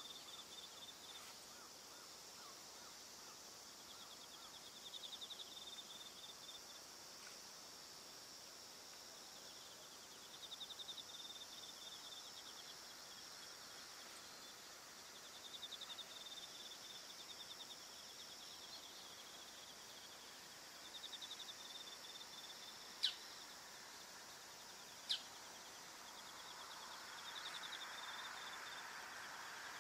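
Crickets in the fields: short pulsed trills every five or six seconds over a steady high insect hum. Two sharp clicks come in the second half, and a faint rushing noise swells near the end.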